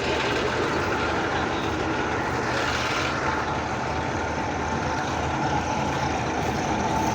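Heavy diesel engine of a Heera combine harvester running steadily, with a steady higher whine joining about three seconds in.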